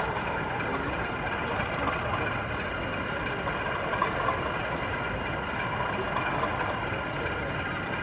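Model Class 37 diesel locomotive running with a train of tank wagons, giving a steady, engine-like drone with high steady tones over the murmur of voices in an exhibition hall.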